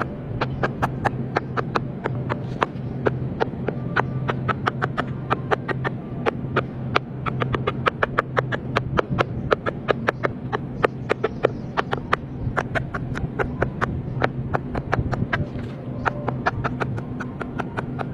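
Silicone pop-it fidget toy bubbles being pressed in quick succession, a rapid string of sharp pops at about four to six a second, over a steady low hum.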